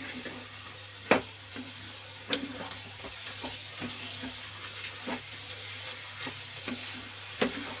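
Chopped mushrooms, capsicum and tomatoes sizzling in oil in a kadai over a high gas flame as they are stirred, with a steady frying hiss. Sharp knocks of the stirring utensil against the pan come every second or two, the loudest about a second in.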